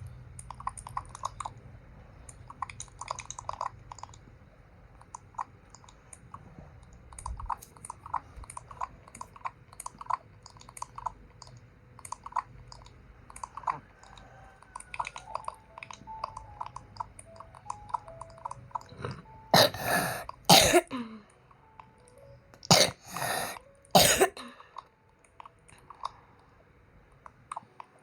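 A person's mouth sounds: small clicky chewing noises through most of it, then two loud bouts of coughing, about twenty and twenty-three seconds in.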